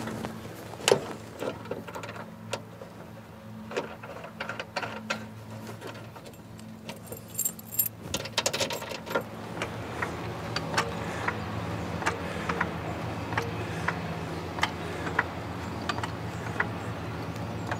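Light metal clinking and jangling in many quick separate clicks, busier in the second half, over a steady low hum.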